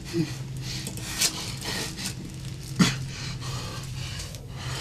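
Muffled groans and heavy breaths of a man gagged with duct tape, with a few short rustles; the loudest is a falling groan with a breath about three seconds in. A steady low hum runs underneath.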